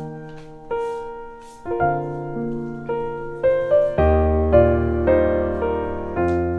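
Background music: a gentle piano melody of sustained notes, with a deeper bass part joining about four seconds in.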